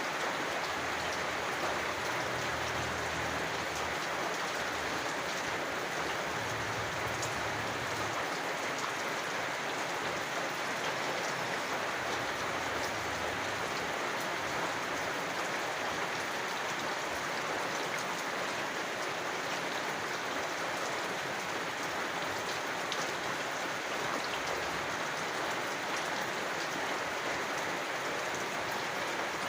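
Steady rain falling, an even hiss of drops pattering on surfaces.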